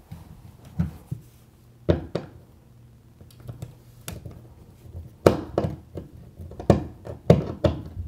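Irregular sharp clicks and knocks of a flathead screwdriver working on a keystone jack and its plastic wall plate, busier in the second half.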